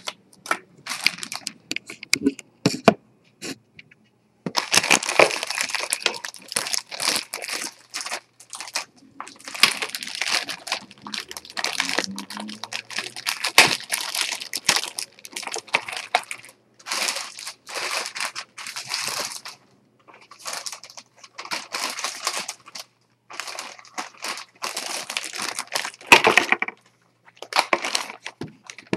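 Plastic packaging around a keyboard being handled and pulled off, crinkling and rustling in irregular bursts with short pauses between them.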